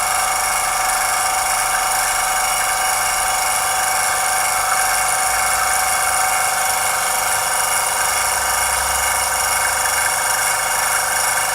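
Airbrush compressor motor running steadily with an even hum and several steady high tones, working again without sticking; it builds little pressure, which the owner puts down to air escaping at the outlet end.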